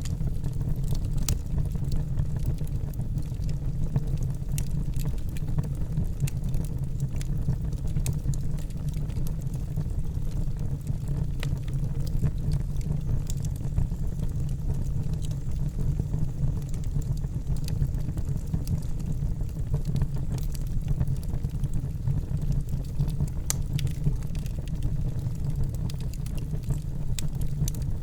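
Wood fire burning in a fireplace: a steady low rumble of flames with scattered small crackles and pops.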